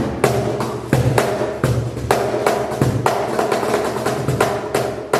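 Cajon played by hand in a quick, steady rhythm of sharp strikes, about four to five a second, mixing deep bass hits from the middle of the front face with bright snare slaps near its top edge.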